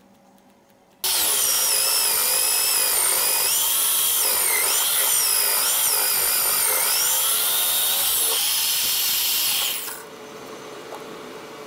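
Bench drill press boring a 19 mm hole into a wooden block with a Forstner bit: the motor's whine and the bit cutting start suddenly about a second in, the pitch wavering as the bit bites. Near the end the bit is out of the wood and the drill runs on, much quieter.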